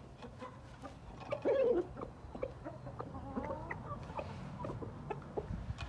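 Gamefowl chickens clucking, with one louder call about a second and a half in, over scattered short clicks.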